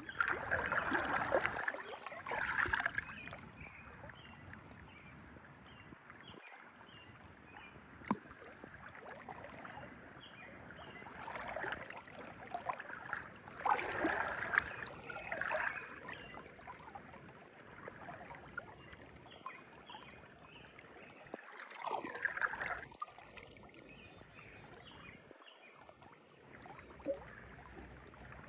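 Kayak paddle dipping and splashing in river water, in three bouts of strokes separated by quieter stretches of gliding.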